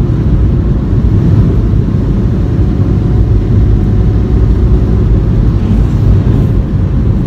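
Kei cargo van driving, heard inside the cab: a steady, loud low rumble of engine and road noise.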